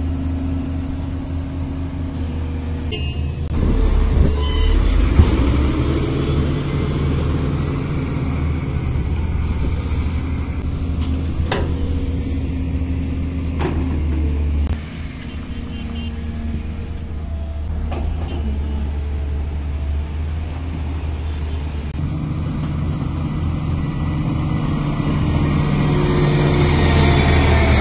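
Hydraulic excavator's diesel engine running under load. It gets louder about three and a half seconds in, drops back about fifteen seconds in and builds up again near the end, with a few sharp knocks along the way.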